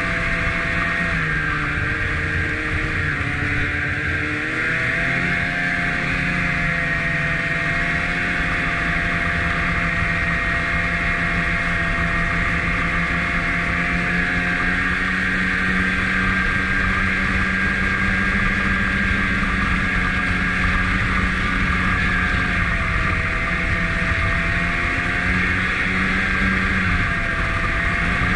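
Snowmobile engine running while the sled rides along a trail. The engine note drops and climbs back as the throttle eases and opens, about four seconds in and again in the last few seconds.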